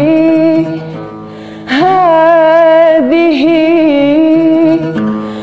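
A woman singing a slow Arabic melody in long held notes with vibrato, accompanying herself on an oud. About a second in the voice drops out briefly, then comes back.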